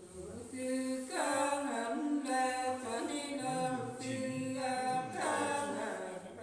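Unaccompanied voice singing a Nùng folk song, long held notes that bend slightly in pitch, with short breaks between phrases.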